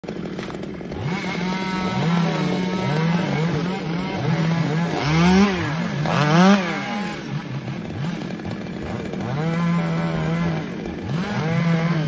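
Two-stroke chainsaw revved over and over: the engine climbs quickly to full speed, holds briefly and drops back, about a dozen times. The two highest revs come around the middle.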